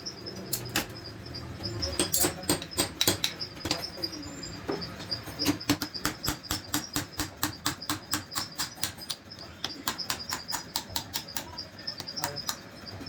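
A quick series of sharp metallic taps, irregular at first and then about three or four a second, as parts are tapped or worked by hand. A faint high chirping runs underneath.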